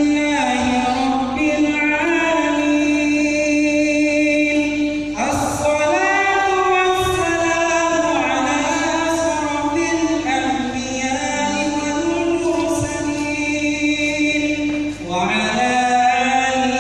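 A man's voice chanting an Arabic prayer in long, melodic held phrases, with short breaks for breath about five seconds in and again near the end.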